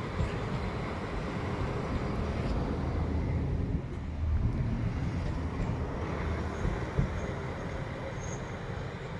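SNCF BB 67000-family diesel locomotive running light, its engine working hard under load as it passes beneath. The engine sound swells to its loudest about four to five seconds in, then eases as the locomotive moves away.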